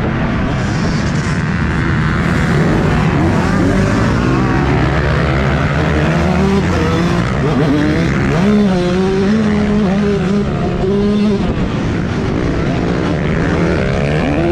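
Motocross bike engine revving hard under the rider, its pitch climbing and dropping with throttle and gear changes, holding steady for a few seconds around the middle, over a steady rushing noise.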